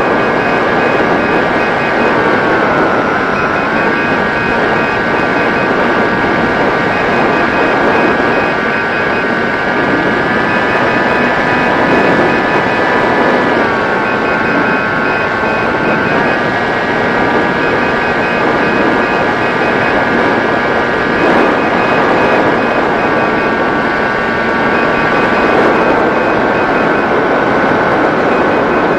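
Electric motor and propeller of an RC model plane whining steadily over loud air rush, the pitch stepping down and back up several times as the throttle is eased and opened.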